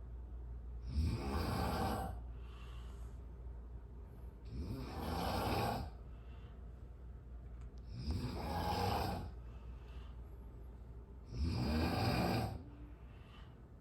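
A person snoring loudly in sleep: four long snores, one about every three and a half seconds, with quieter breathing between them.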